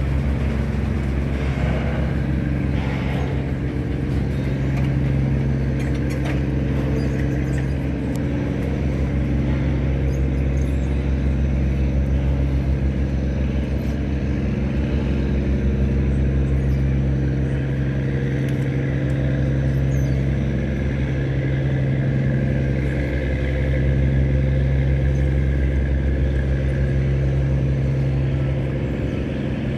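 A machine running steadily, giving an even low hum that holds without rising or falling.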